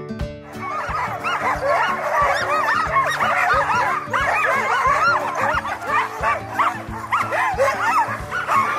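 A team of harnessed sled huskies giving many short, high, overlapping yelps that rise and fall in pitch, the excited clamour of sled dogs at the start of a run.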